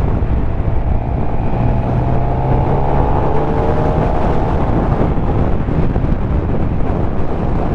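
Heavy wind buffeting on a helmet microphone over the inline-four engine of a 2016 Suzuki GSX-R750 on the move. The engine note rises slowly through the first five seconds or so as the bike pulls.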